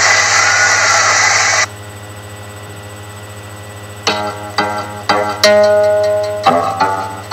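A loud steady hiss cuts off suddenly, leaving a low hum; about four seconds in, a plucked string instrument, a guitar, starts picking slow single notes, one of them held longer.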